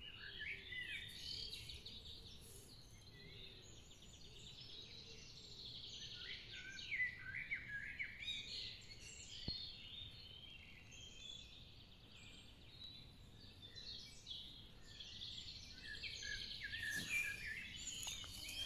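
Several small birds singing and chirping faintly, with many short calls overlapping throughout.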